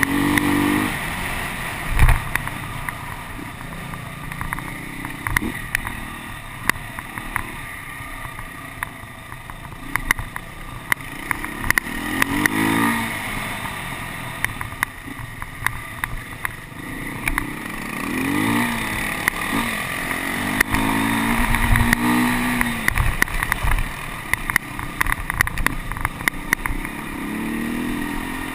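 Beta 250RR enduro motorcycle engine running under way on a bumpy dirt track, its revs rising and falling several times, with frequent sharp clicks and knocks.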